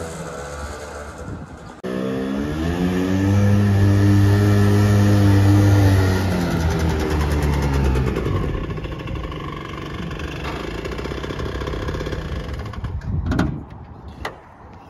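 Casalini Sulky microcar's 50cc two-stroke engine revving up, running hard for a few seconds, then slowing back to a lower steady running before it dies away. Two sharp clicks follow near the end.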